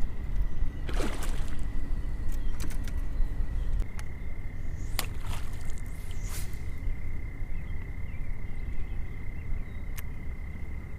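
Outdoor ambience out fishing: a steady low rumble with a faint, steady high-pitched whine over it. A brief falling swish comes about a second in, and a few sharp clicks sound about halfway through and near the end.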